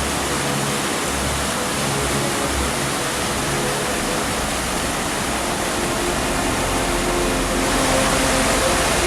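Mountain torrent rushing steadily: a dense, even noise of fast white water.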